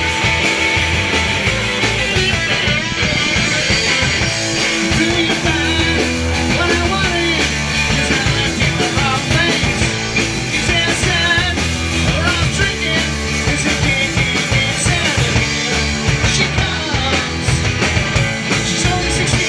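Live rock band playing loud, with two distorted electric guitars over a drum kit, and a man's sung vocal across the middle of the passage.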